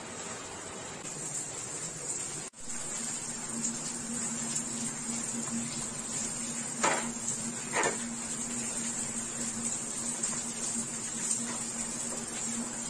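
Steady rain hiss, then a steady electric cooktop hum under a steel pot of simmering fish and vegetables, with two short metal clanks about a second apart as the pot is gripped and moved on the cooktop.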